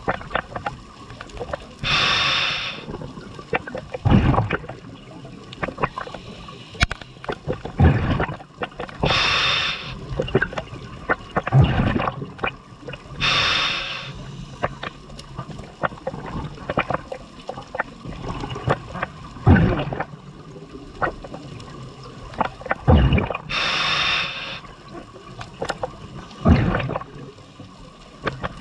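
Scuba diver breathing through a regulator underwater: a short hiss on each inhale, then a low bubbling rush as the exhaled air leaves, repeating every several seconds, with small clicks and crackles in between.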